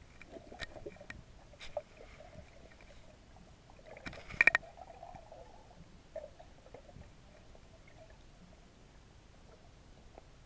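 Muffled underwater sound through a camera's waterproof housing: scattered clicks and crackles, with a sharp cluster of clicks about four seconds in.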